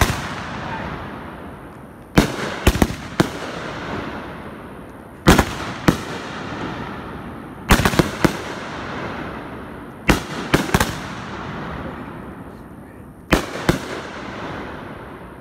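Firework cake firing aerial shots that burst overhead: sharp, loud bangs in clusters of one to three, a new cluster every two to three seconds, each trailing off slowly before the next.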